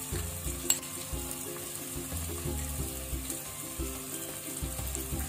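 Chopped onion and tomato frying in oil in a kadai, with a steady soft sizzle, over quiet background music with a stepping melody. A single light click about a second in.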